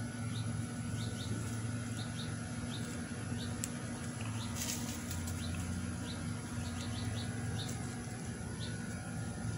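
Faint short bird chirps scattered over a steady low hum, with a brief rustling noise about halfway through.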